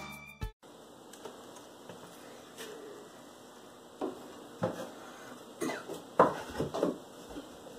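The tail of guitar music cuts off about half a second in, then quiet room tone with a few soft knocks and scrapes of wooden boards being handled and fitted against a wall, clustered in the second half.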